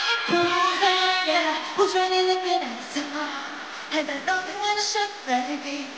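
A woman singing English lyrics into a microphone over backing music with a beat, holding and sliding between notes.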